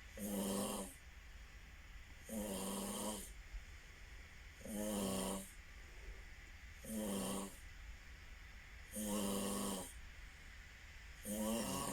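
A person snoring in a steady rhythm: six buzzing snores, each under a second long, about two seconds apart.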